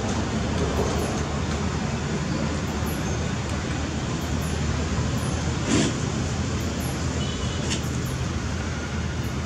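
Steady low mechanical hum with a constant hiss over it, and a brief faint tick about six seconds in.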